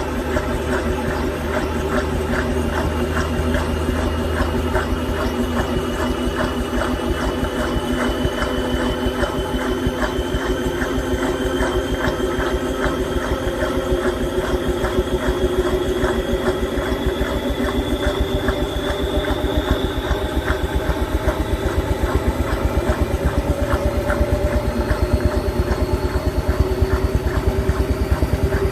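Washing machine on a 900 rpm spin cycle, heard from inside the drum: the motor's whine rises slowly and steadily in pitch as the drum speeds up, over a fast, even pulsing rattle of the spinning drum that grows a little louder near the end.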